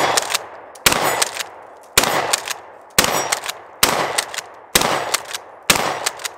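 12-gauge Mossberg Maverick 88 pump-action shotgun fired in a steady string of about seven shots, roughly one a second. The pump is worked between shots, and each blast echoes briefly.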